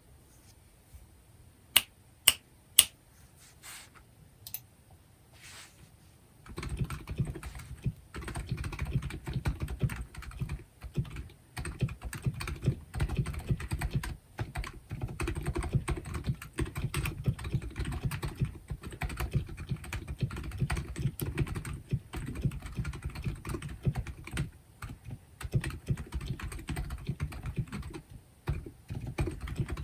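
Womier K66 mechanical keyboard with stock, unlubricated Silent Alpaca switches on a desk mat being typed on. A few sharp separate clicks come first; then continuous fast typing starts about six seconds in, a dull, low-pitched patter of dampened keystrokes.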